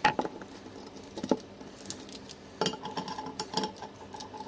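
Scattered light metal clicks and taps as scooter suspension parts, a shock absorber and its bolt, and an Allen key are handled on a tabletop during disassembly, with a quick run of clicks about three seconds in.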